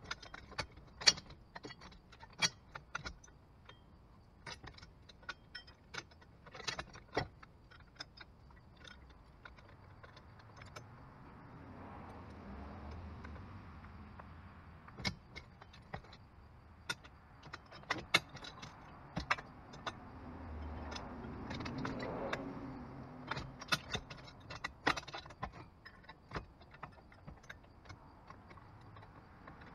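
Irregular sharp metallic clinks and clanks of the steel parts of a MaxxHaul 70238 receiver-hitch crane being fitted to the hitch and tightened down by hand and with tools. A low rumble swells and fades twice, around the middle and about two thirds through.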